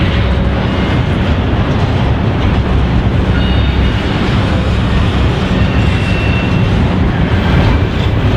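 Union Pacific double-stack container train rolling past: a loud, steady rumble and clatter of the well cars' wheels on the rails. A few faint, brief high squeals sound in the middle.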